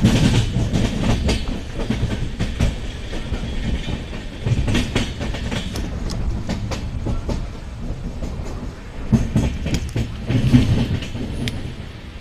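Passenger train running along the track, its wheels rumbling steadily and clicking and clattering irregularly over the rail joints. The clatter grows louder about halfway through and again near the end.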